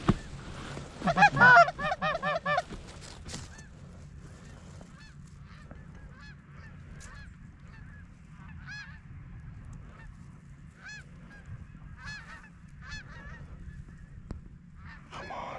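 Canada goose honking: a loud, quick run of honks about a second in, then fainter, scattered honks for the rest of the time.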